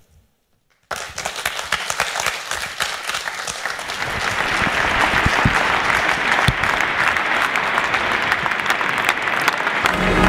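Audience applause breaking out suddenly about a second in, just after a closing "thank you", and swelling into full clapping. Brass music comes in at the very end.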